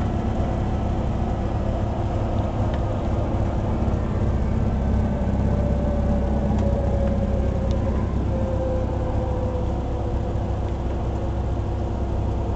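Single-engine high-wing light aircraft's piston engine and propeller running steadily as it rolls down the runway, heard inside the cabin as a low drone. About halfway through, a faint tone slides slowly lower.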